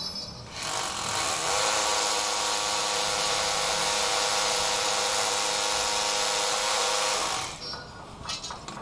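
Electric drill starting up about a second in, running steadily for about six seconds, then stopping.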